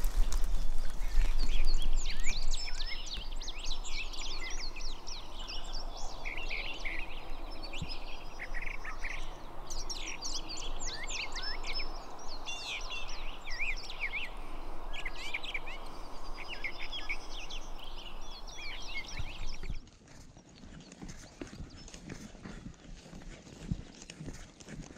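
Songbirds chirping and singing in repeated bursts over a steady rustling background noise. About twenty seconds in, the background drops away suddenly, leaving a quieter stretch with a few faint clicks.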